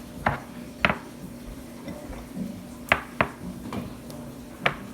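A utensil knocking and clinking against a bowl while slime is mixed: about five sharp, separate knocks spread irregularly, over a faint steady low hum.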